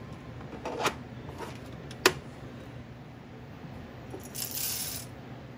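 A single-dose hopper scrapes into the grinder's collar and twists into place with a sharp click about two seconds in. Near the end, coffee beans pour from a steel scoop into the hopper with a brief rattle.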